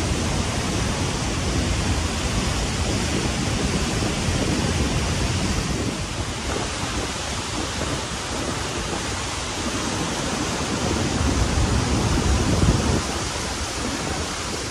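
Waterfall and the fast river below it rushing steadily: a dense, even hiss of water with a low rumble underneath that swells a little near the end.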